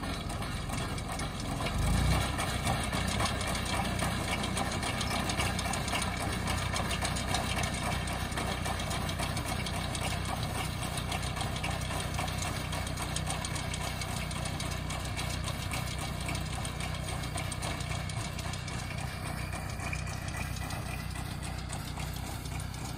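Small tractor's engine running steadily as it pulls a loader wagon picking up hay, with a brief low thump about two seconds in.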